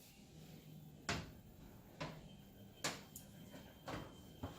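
Kitchen handling knocks as an oven is opened and a baking pan is taken out: about six separate knocks and clicks, roughly one a second, fairly quiet.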